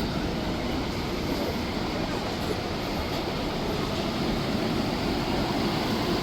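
Steady rumble and hiss of air-conditioning and ground equipment at a parked airliner, heard while walking down the jet bridge into the cabin.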